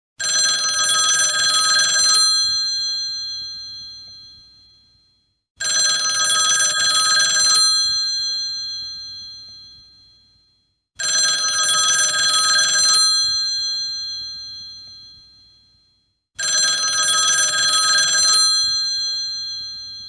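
Old-style telephone bell ringing: four two-second rings about five and a half seconds apart, the bell's tones fading away after each ring stops.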